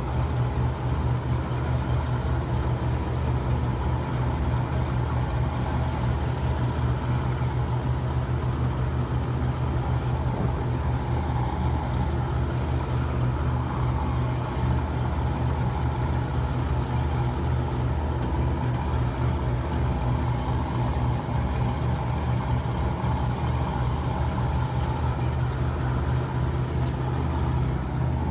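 Fishing boat's engine running steadily underway, a constant low drone, with the rush of water from the wake.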